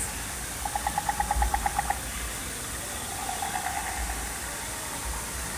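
Steady hiss of water along the ride's boat channel, with a rapid chirping trill of about ten pulses a second: once for just over a second, and again more faintly about three seconds in. The trills are creature calls from the ride's rainforest soundscape.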